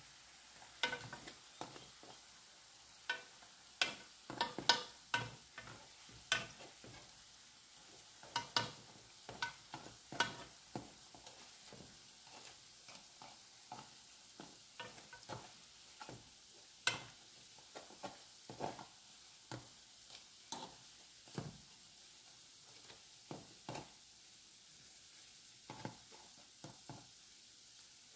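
Flour dumplings sizzling softly in a deep pot of oil on low heat. Irregular clicks and taps sound throughout as a metal fork turns them over against the pot.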